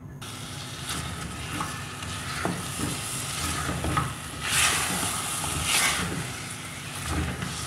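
Yogurt-marinated chicken drumsticks sizzling in a little oil in a metal pot while a spatula stirs them, scraping and knocking against the pot now and then. The frying hiss swells twice in the middle.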